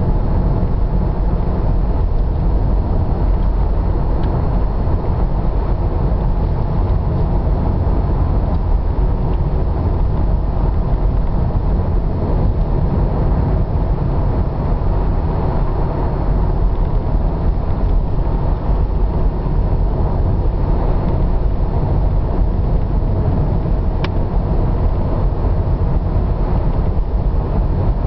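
Steady road and engine noise of a car driving on a paved road, heard from inside the cabin.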